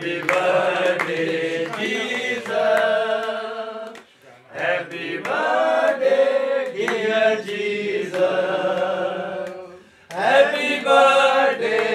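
A group of voices singing together in long held phrases, with short pauses about four and ten seconds in.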